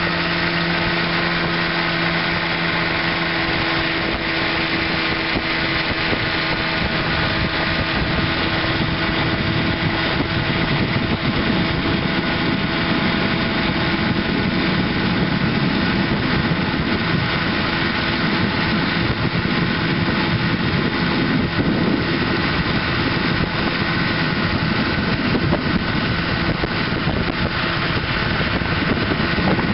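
1958 Evinrude Sportwin 10 hp twin-cylinder two-stroke outboard running steadily at speed in forward gear, with the rush of the boat's wake under it.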